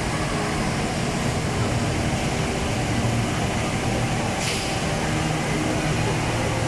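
Steady roar of water falling from the Rain Vortex, a huge indoor waterfall pouring into its pool, with a low rumble beneath and a brief hiss about four and a half seconds in.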